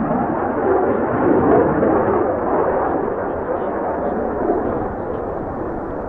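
Jet noise from a Mitsubishi F-2B's single F110 turbofan as the fighter banks and climbs away: a loud, rough rumble that peaks about a second and a half in, then slowly eases.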